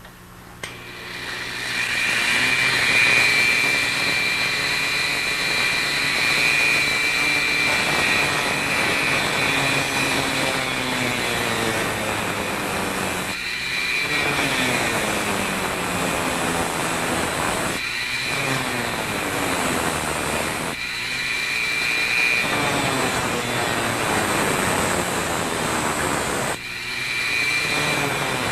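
Dremel rotary tool with a small cutting wheel starting up and running with a steady high whine while cutting through the metal ribs of an endoscope's suction-channel spring guide. The sound dips briefly four times, and its pitch shifts as the load changes.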